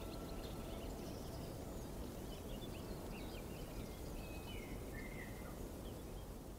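Outdoor ambience: a steady low rumble with scattered bird chirps and short whistled calls, beginning to fade near the end.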